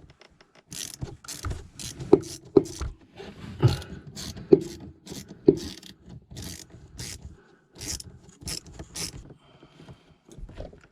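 Irregular metallic clicks and clatter of hand tools being worked on the heater's fittings, some clicks with a short ringing note.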